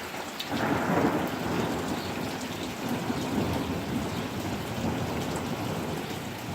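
Thunder over heavy rain. A rumble swells suddenly about half a second in, is loudest around a second in, then rolls on and slowly eases, while the downpour falls steadily throughout.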